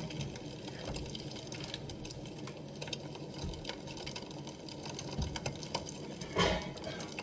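Egg-in-bread frying in a pan on the stove: a steady sizzle with many small crackles and pops. A short, louder sound comes near the end.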